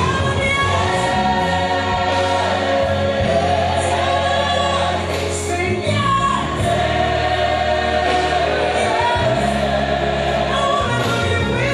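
Gospel music: a choir singing over long held bass notes.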